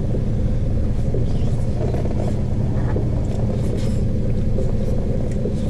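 Crab boat's engine running steadily, a constant low rumble heard inside the wheelhouse.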